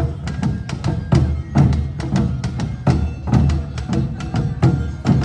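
Awa odori festival band playing: taiko drums and a small hand gong keep a quick, steady two-beat rhythm, about two drum strokes a second with sharp metallic clicks between them.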